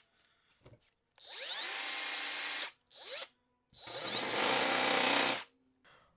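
Cordless 3-inch cutoff tool converted to a mini belt sander, run in three short trigger pulls with no load. Each time the motor whines up to speed: about a second and a half, then a brief blip, then about two seconds.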